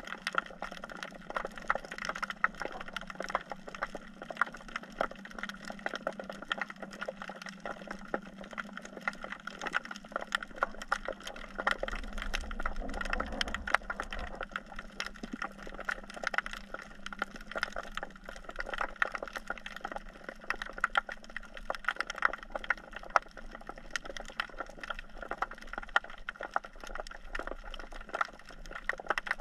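Underwater reef crackle: a dense, steady patter of sharp clicks typical of snapping shrimp, heard through a submerged camera, over a faint steady low hum.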